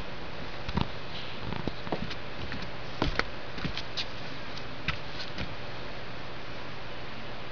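Steady hiss with a dozen or so short, light clicks and taps scattered through the first five and a half seconds, two of the sharpest close together about three seconds in.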